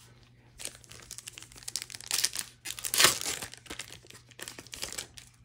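Foil wrapper of a March of the Machine: The Aftermath booster pack crinkling and tearing as it is opened, loudest about three seconds in.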